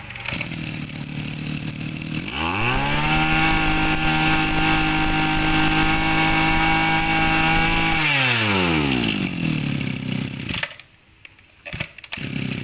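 Small 26 cc two-stroke brush cutter engine, a Robin, starts on the pull cord and idles. About two seconds in it is revved up to a steady high-pitched run and held there for about six seconds. It then drops back to idle and is switched off near the end.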